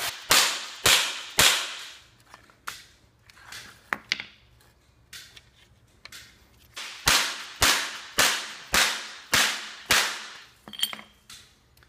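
Dead blow hammer striking a wooden form block that sandwiches a dented metal Sherman trap panel, pounding the creases flat. Three sharp blows come first, then a pause with a few small knocks, then a run of about seven blows roughly two a second.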